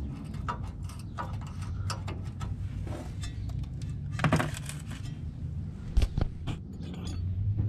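Metal hand tools clicking and clinking on a tie rod end as its castle nut is worked loose, in short irregular taps with a louder knock about six seconds in.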